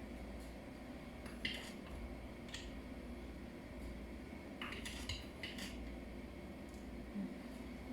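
A metal spoon clinking against a pot as sugar is spooned in: a few separate clinks, then a quick cluster of several about halfway through.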